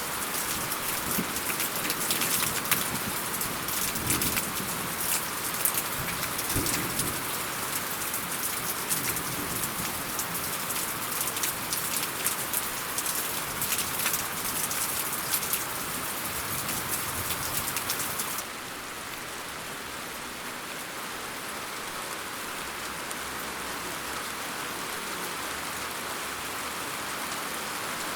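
Steady rain falling on a surface, a dense patter of drops. About two-thirds of the way through it changes abruptly to a softer, smoother rain hiss.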